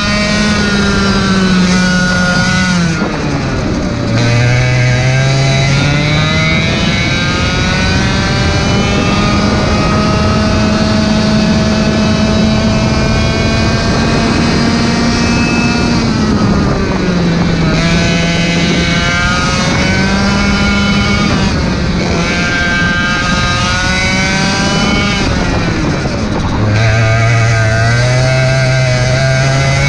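Racing kart engine at full pace, heard from the kart: revs climb and hold high along the straights and drop sharply for the corners, about three seconds in, around seventeen seconds and again near twenty-six seconds, then climb again.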